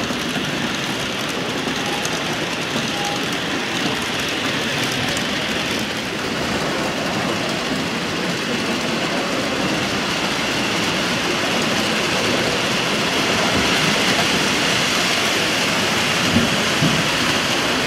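H0-scale model trains running on the layout's track: a steady rolling rattle that grows a little louder in the second half.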